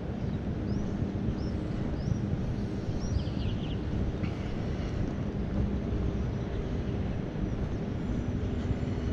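Steady low rumble of distant city traffic mixed with wind on the camera's microphone, with a few faint high chirps in the first few seconds.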